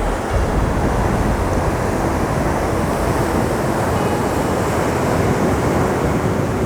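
Heavy surf breaking and rolling around a pier: a steady, loud rush of white water.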